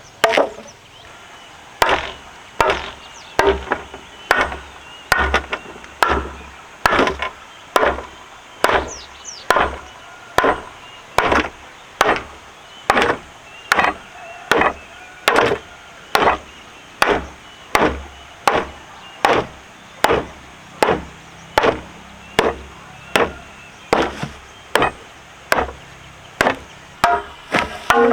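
Steady chopping: a blade striking into wood at an even pace, about three strikes every two seconds.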